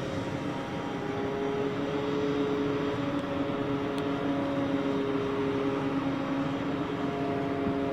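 E-flite Extra 300 radio-controlled model plane in flight, its electric motor and propeller giving a steady droning whine that shifts slightly in pitch.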